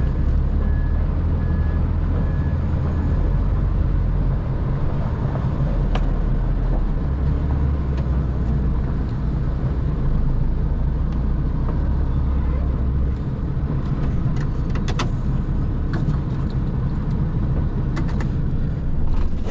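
HGV lorry's diesel engine running at low revs as the truck is manoeuvred to park up, its low drone swelling and easing. A few sharp clicks come in the last few seconds.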